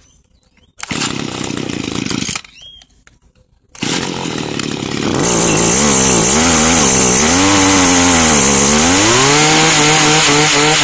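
Stihl HS80 hedge trimmer's small two-stroke engine being pull-started. After a short burst of sound about a second in and a brief pause, it catches about four seconds in. It is then revved up and down several times, the pitch rising and falling, and held high near the end under a high steady whine.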